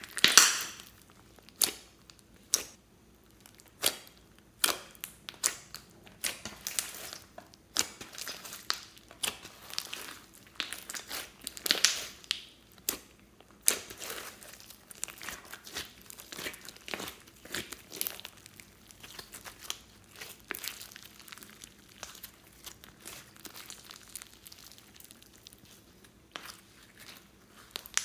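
Hands squeezing and kneading a big batch of glossy slime mixed with floam beads: irregular crackles and pops of the slime being pressed, loudest near the start and around the middle, thinning out toward the end.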